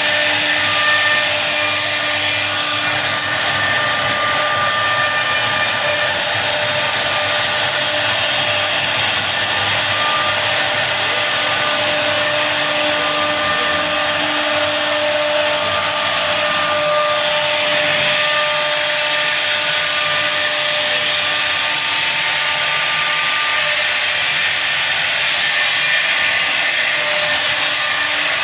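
CNC router spindle running steadily as it carves a design into wood: a loud, constant whine over cutting hiss.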